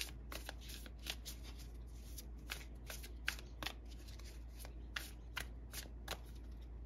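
A deck of tarot cards shuffled by hand: a run of quick, irregular card slaps and riffling clicks, a few a second.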